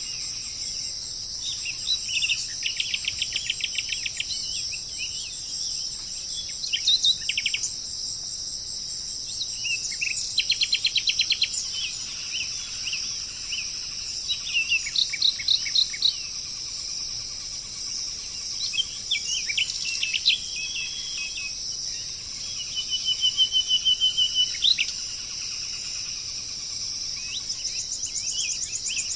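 Songbirds singing short trills and chirping phrases every few seconds over a steady, high insect chorus.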